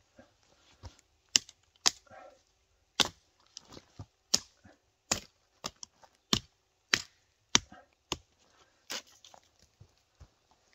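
Odenwolf W machete, a D2-steel blade, chopping into a freshly downed pine log: about a dozen sharp blade strikes at uneven intervals, roughly one a second.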